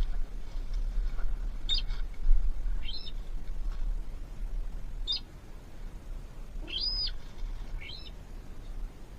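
A small bird giving short, high chirps, about five single notes spaced a second or more apart, over a low rumble of wind or handling noise.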